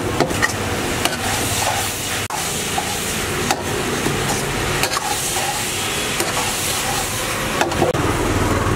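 Chilli paneer with capsicum and onions sizzling in a wok over a high gas flame, with the steady rush of the burner. A spatula scrapes and knocks against the wok now and then as the food is stirred and tossed.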